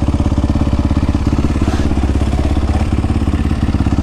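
Suzuki RM-Z450's single-cylinder four-stroke engine idling steadily with an even, rapid beat, its top end freshly rebuilt.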